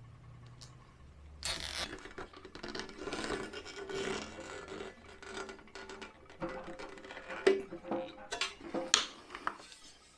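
A new band saw tire being worked and stretched by hand over the rim of an Atlas band saw wheel, making scratching and rubbing, with a few sharp snaps in the second half. This is a fresh tire going on in place of the worn, cracked originals.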